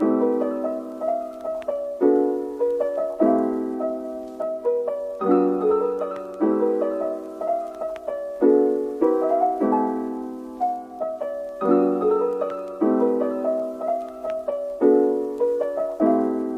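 Background music: soft piano playing repeated sustained chords with a slow, gentle melody on top, a new chord struck about every second.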